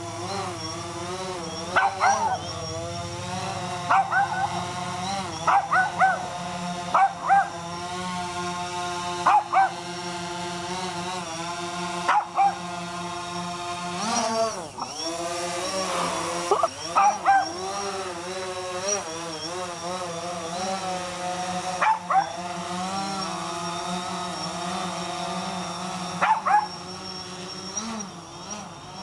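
Bichon Frise barking in short clusters of one to three barks, again and again, over the steady hum of a DJI Phantom 4 quadcopter's propellers, whose pitch shifts slightly as the drone moves.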